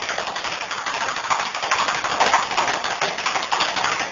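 Pancake batter sizzling in a hot frying pan, a steady dense crackle that cuts off abruptly near the end.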